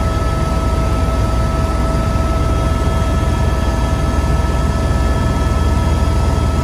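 Helicopter in flight, heard inside the cabin: a steady loud drone of engine and rotor, with a constant high whine over a deep rumble.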